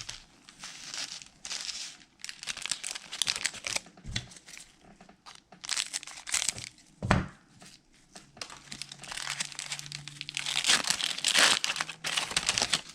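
Basketball card pack wrappers crinkling and tearing as packs are ripped open, in irregular bursts that are loudest near the end, with a single tap about seven seconds in.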